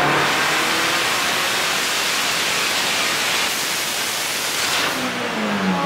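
Loud, steady rushing hiss with no clear pitch, easing off about five seconds in.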